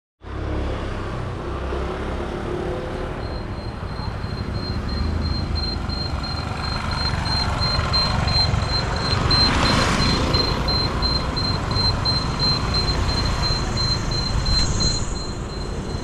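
Road traffic rumbling, with a vehicle passing about ten seconds in. A high, rapidly pulsing tone runs through it from about three seconds in.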